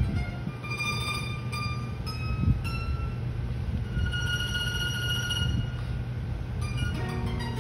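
Bandurria and classical guitar duet in a slow passage. The bandurria holds long high notes, the longest about four seconds in, over soft guitar accompaniment.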